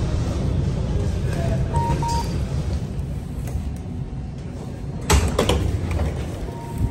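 Low steady hum of a stopped tram or bus with its automatic sliding doors: a short electronic beep about two seconds in, a loud clunk and rattle of the doors about five seconds in, and another beep near the end.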